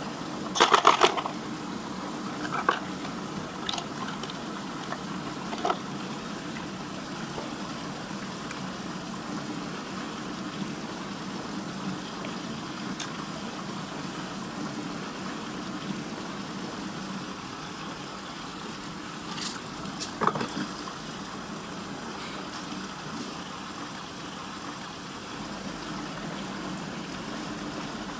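Water swirling steadily down a whirlpool vortex in a tank, with a burst of splashing and plastic clatter about a second in as toy trucks are tipped into it, and another brief splash and clatter around twenty seconds in.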